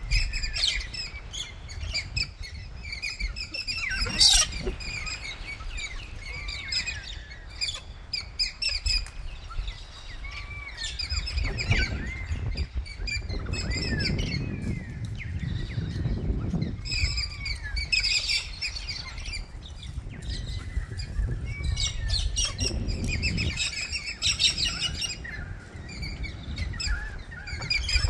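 A flock of galahs calling: many short, high chirping calls overlapping throughout, with one sharper, louder call about four seconds in, over a low rumble that swells at times.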